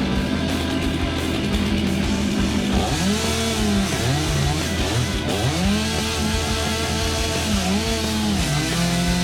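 Two-stroke chainsaw running at full throttle. Its pitch sags repeatedly as the chain loads up in the birch wood and climbs back when it frees, then holds steady near the end. Background music plays underneath.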